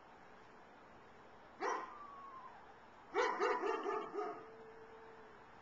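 Dog-like yelping calls from an unseen animal: one sharp yelp about a second and a half in, then a quick run of about six yelps near the middle that trails off into a held note. It is the weird noise the listeners cannot place, taken by them for an owl or a dog in pain.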